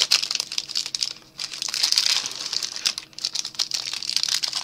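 The plastic wrapper of an Atkins triple chocolate bar crinkling and rustling as it is torn open by hand, in runs of crackling with two brief lulls, about a second in and near three seconds.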